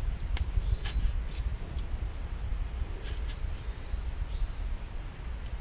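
A few sharp, irregular clicks of a ratchet turning an oil-filter cap socket to snug a new spin-on oil filter. Underneath are a steady high insect buzz and a low rumble.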